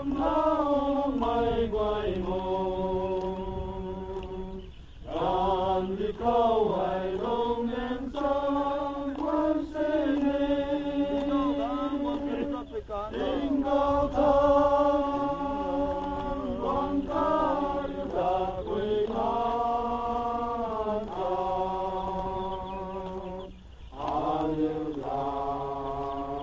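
A group of men singing a hymn together from hymn books, in long held notes sung in phrases with short breaks between them.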